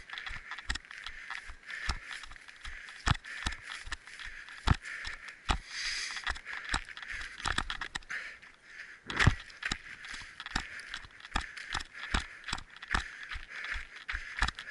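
Running footsteps on a trail, uneven thuds about two to three a second, over a steady hiss.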